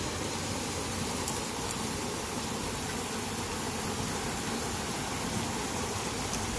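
Steady rush of small waterfalls and a flowing stream, with a few faint clicks.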